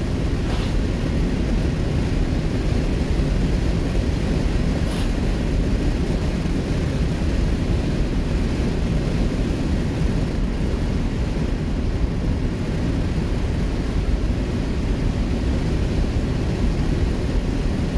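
1967 Ford Mustang's 200 cubic-inch inline six, its Holley 1940 one-barrel carburettor freshly rebuilt, running at a steady cruise, heard from inside the cabin with tyre and road noise. A continuous, even rumble, strongest at the low end.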